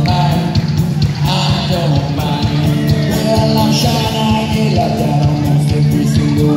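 Live rock band playing through a PA: a steady drum beat with acoustic and electric guitars and bass, and a voice singing over it.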